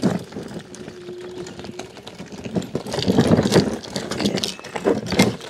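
Electric scooter's motor straining uphill under load, with rattling and knocking that grow louder about three seconds in, and a brief steady whine near the start. Heavy strain on the motor on a steep climb.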